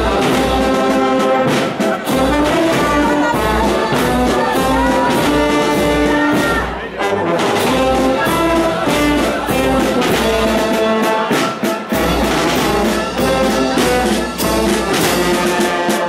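Marching brass band playing a march: trombones, trumpets and tubas carrying the melody, with snare and bass drums keeping a steady beat.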